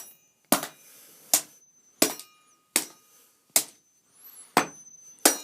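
A hammer banging on a desktop PC's metal case and parts: about seven sharp blows, roughly three-quarters of a second apart, some leaving a brief high metallic ring.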